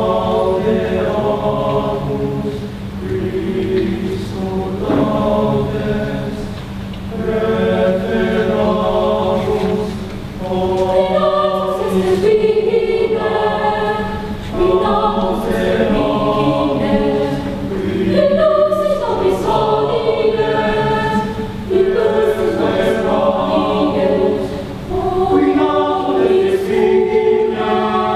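Mixed-voice youth choir, girls and boys, singing unaccompanied in sustained phrases of a few seconds, swelling and easing with short breaks between them.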